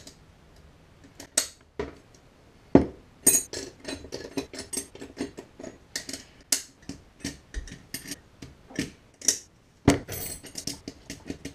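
Steel and friction clutch plates clinking against each other and against the metal drum as they are stacked into an automatic transmission clutch pack. A few clicks at first, then a busy run of irregular sharp clinks from about three seconds in.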